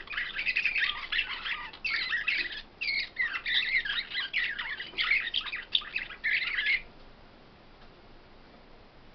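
Caged songbird singing a fast run of chirps and trills, with a brief break about two and a half seconds in; the song stops abruptly about three-quarters of the way through.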